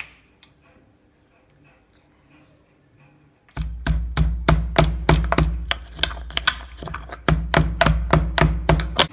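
Pestle pounding fresh ginger, black peppercorns, cloves and tulsi leaves in a mortar. After a few near-quiet seconds, rapid repeated strikes begin, about three to four a second, and keep going.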